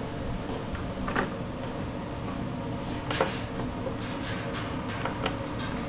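Light clicks and scrapes of metal parts being handled as the drive cable end is worked into place on the mower, a few short ones spread through, over a steady low background hum.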